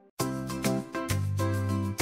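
Upbeat background music that starts abruptly after a brief silent gap, with a steady beat, a bass line and bright pitched notes.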